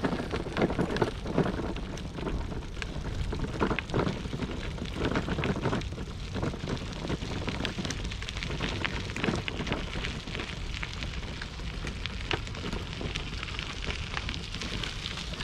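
Bicycle riding over a dirt and gravel track: a steady crackling crunch from the tyres with many scattered clicks and rattles, over a low rumble of wind on the microphone.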